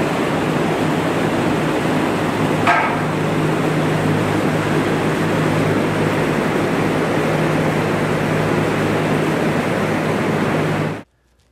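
Steady mechanical noise, a loud even hiss over a constant low hum, that cuts off abruptly near the end. A short, sharper sound comes about three seconds in.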